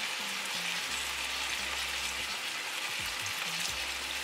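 Pork loin back ribs sizzling steadily in a frying pan over a low gas flame while fresh lemon juice is squeezed onto them.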